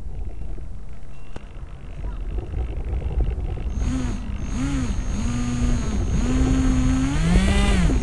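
Wind rushing over the onboard camera of a Multiplex Easy Star RC plane. About four seconds in, the plane's electric motor and propeller come on with a thin high whine, and the pitch swoops up and down several times as the power changes.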